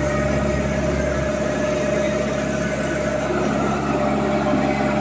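Ajax self-loading concrete mixer's diesel engine running steadily at a constant speed, with a steady whine over the engine note.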